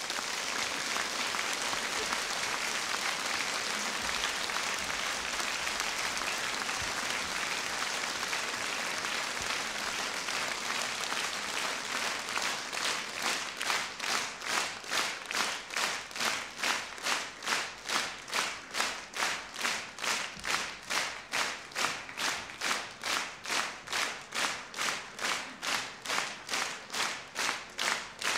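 Audience applause after a live music performance, which about halfway through falls into rhythmic clapping in unison, about two claps a second.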